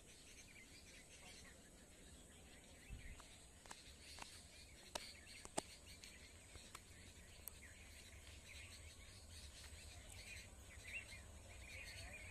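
Near silence: faint rural ambience with a steady high insect drone and scattered bird chirps, a few faint clicks, and a low rumble that builds from about three seconds in.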